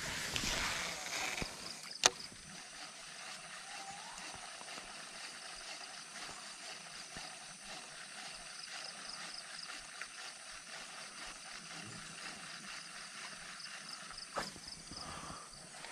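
Casting with a Shimano Scorpion baitcasting reel: a rushing whirr as the spool pays out line for about a second and a half, a sharp click about two seconds in, then a quiet, steady retrieve with faint fine ticking over a low steady hiss.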